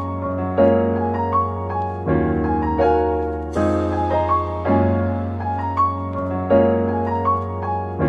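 Soft piano background music: chords struck about once a second over a steady low bass.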